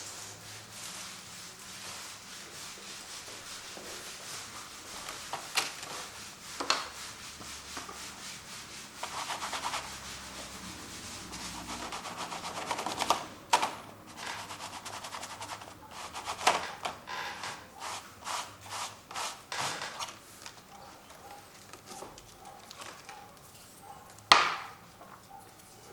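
Acrylic paint being worked onto a canvas: scratchy, scrubbing strokes against the canvas, broken by sharp taps and knocks, with a quick run of taps about two-thirds of the way through and the loudest knock near the end.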